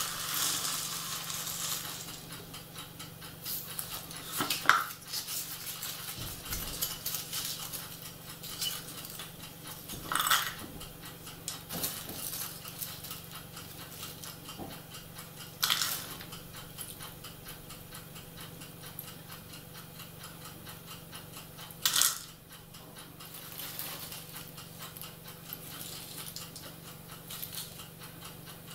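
Small plastic track offcuts tipped out of a cup onto a tabletop and rattled and sifted through by hand: a clatter at the start, then short clattering bursts every few seconds over faint, continuous small clicking.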